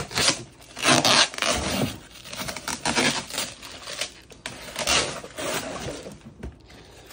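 Tape and wrapping being ripped and pulled off a heavily taped gift box by hand, in a series of irregular tearing and scraping strokes.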